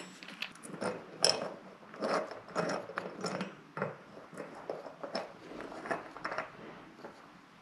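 Screws being driven in by hand to fasten a barn door's metal floor guide plate: a run of irregular small clicks and scrapes of the screwdriver and metal hardware, with no power tool running.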